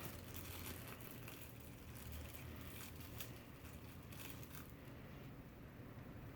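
Faint crinkling and rustling of plastic packaging being handled, with many small clicks that thin out about four and a half seconds in. A low steady hum runs underneath.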